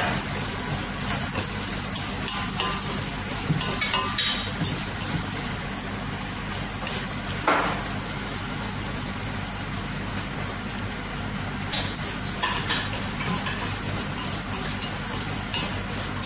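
Vermicelli noodles sizzling as they fry in butter and oil in a stainless steel pot, being toasted to golden brown, with a wooden spatula stirring and scraping through them. One louder knock of the spatula about seven and a half seconds in.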